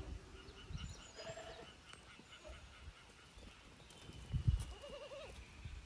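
Young goats bleating, a short wavering call about a second in and another near the end, over low rumbling bumps, the loudest about four and a half seconds in.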